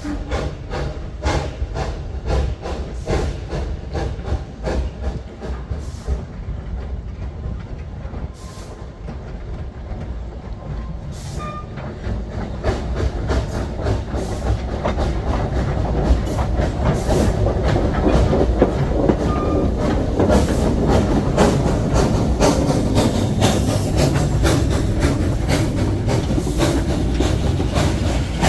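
Narrow-gauge train running on the track, its wheels clicking rhythmically over the rail joints. The running noise grows louder about halfway through.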